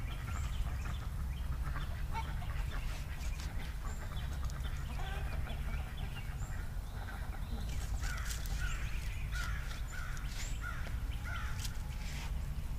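Backyard poultry calling, with a quick run of short repeated calls about eight seconds in, over a low steady rumble. A hand trowel scrapes and pokes in loose soil.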